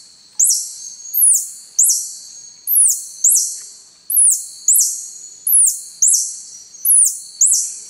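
Spectral tarsiers calling: a run of very high-pitched, falling squeaks, about two a second, given in reply to tarsier calls played back by the guide.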